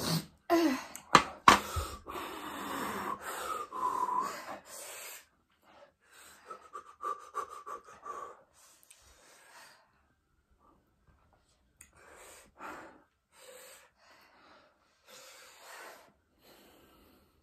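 A person breathing hard through the mouth from the burn of spicy ramen noodles. The breaths come thick and loud for the first five seconds, with a few sharp clicks among them, then thin out to quieter, spaced-out breaths.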